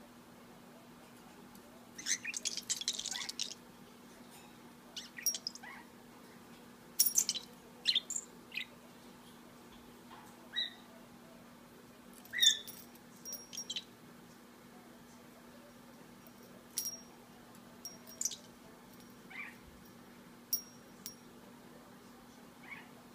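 English budgie making short, scattered chirps and clicks, with a denser burst of chatter about two seconds in. A faint steady hum runs underneath.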